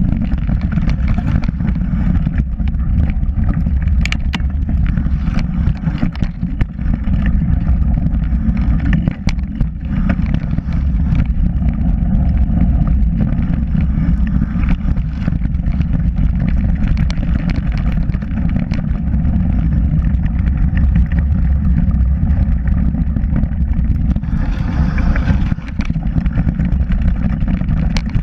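Wind rushing over the mic of a helmet- or bar-mounted camera on a mountain bike riding fast down dirt singletrack, with knobby tyres rolling on the trail and scattered clicks and knocks as the bike goes over bumps. A brief stretch of louder hiss comes near the end.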